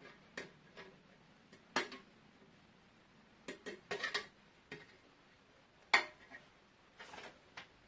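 Scattered light clinks and taps from the parts of a wild bird feeding station being handled, the trough being tried against the pole, with the sharpest knock about six seconds in.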